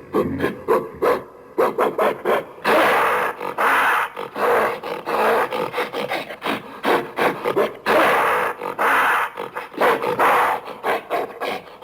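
Creature calls for an imagined Paradolichopithecus, mixed from gorilla and baboon vocalizations: a run of short rough calls, then long harsh calls about three and eight seconds in, with short choppy calls between them.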